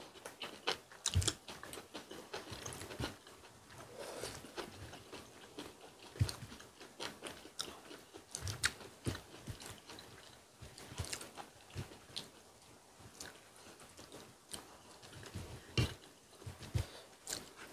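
Close-miked eating: quiet, irregular chewing and biting of food, with scattered sharp clicks of chopsticks against the pot and dishes.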